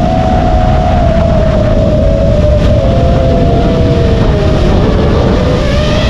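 FPV quadcopter's motors and propellers whining in flight, the pitch wavering with the throttle, dipping about two thirds of the way in and then rising again near the end, over heavy wind rumble on the microphone.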